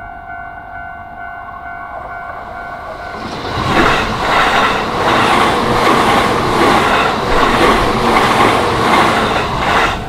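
A level-crossing warning bell rings steadily. From about three and a half seconds in, a JR Yokohama Line electric commuter train passes close by, and the rhythmic clatter of its wheels over the rail joints drowns out the bell. The train noise drops away at the very end as the last car clears.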